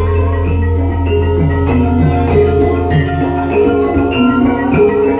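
Javanese gamelan playing: bronze metallophones and kettle gongs strike a dense, even run of ringing notes over the low hum of a large hanging gong, which dies away near the end.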